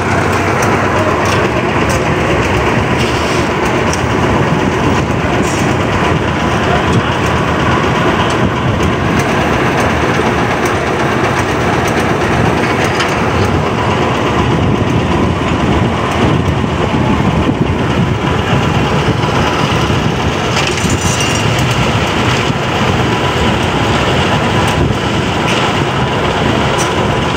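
Concrete mixer with a built-in material hoist running steadily: a continuous, loud machine sound with no pauses.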